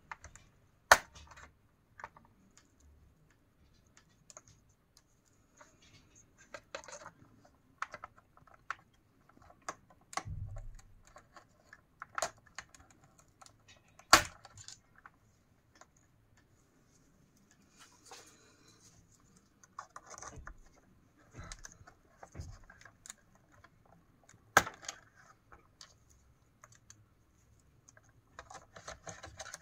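Scattered small clicks and taps of hands working on a car's plastic instrument cluster while its gauge needles are pried off. A few sharp clicks stand out: one about a second in, one about halfway and one about three-quarters through.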